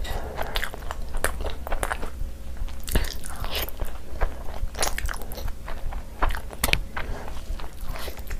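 A person chewing a mouthful of luchi and spicy chicken curry, with irregular wet smacks and soft crunches of the bread between the teeth.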